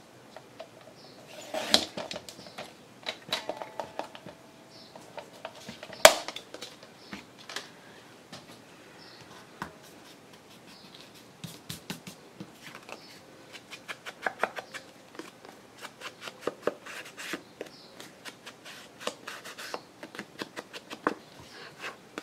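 Paper being cut and handled at a craft table: scattered small snips, clicks and rustles, with one louder sharp knock about six seconds in.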